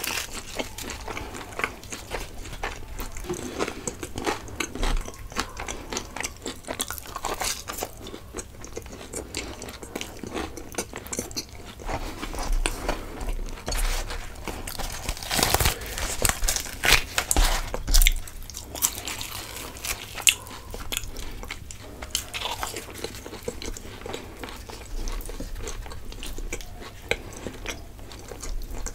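Close-miked eating of chhole bhature, fried puffed bread with chickpea curry: repeated biting and chewing mouth sounds, with a louder run of bites about halfway through.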